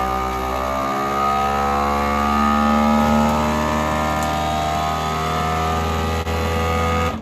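FoodSaver vacuum sealer's pump running steadily as it draws the air out of a bag, its pitch rising a little about two seconds in as the bag pulls tight. It cuts off suddenly near the end.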